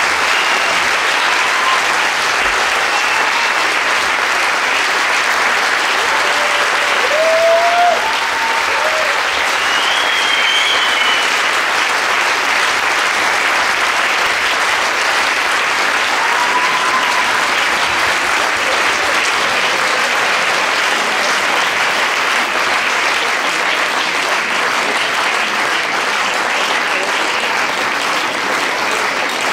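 Audience applauding steadily, with a few short cheers heard over the clapping.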